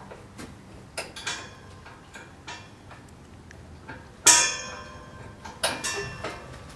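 A series of sharp clicks and metallic clinks, irregular and spread over several seconds, the loudest about four seconds in with a brief ring after it.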